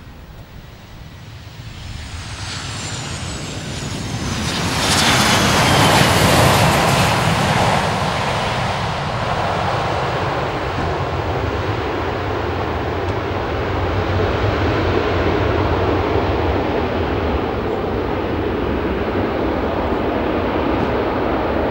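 Boeing 737-800 jet with CFM56 turbofan engines landing. The engine noise builds as it passes, with a high whine falling in pitch about five to seven seconds in. It then settles into a steady roar as the jet rolls out down the runway.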